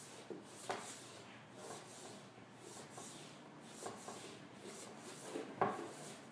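Hard-boxed Freed Studio II pointe shoes knocking and scuffing faintly on a hardwood floor as the dancer works her feet, with a few soft knocks, the loudest near the end.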